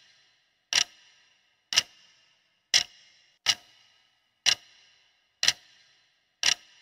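Ticking clock sound effect marking the seconds of a quiz countdown timer: seven sharp ticks about one a second, each with a short bright ring.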